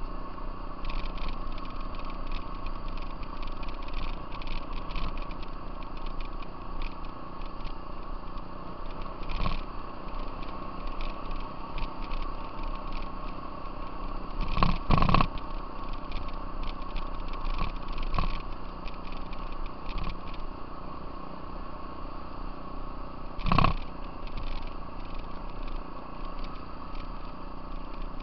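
Off-road vehicle engine running steadily under way on a gravel trail, with frequent rattles and jolts from the rough surface and louder thumps about halfway through and again later.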